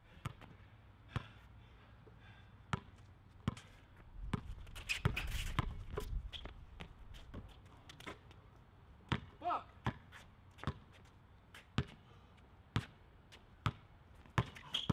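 Basketball dribbled on an outdoor concrete court: sharp bounces, roughly one a second. A louder rush of noise comes about five seconds in.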